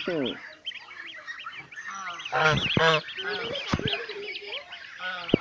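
Domestic goose goslings peeping continuously in thin, high chirps, with an adult goose giving loud honks around the middle, two close together and a shorter one just after.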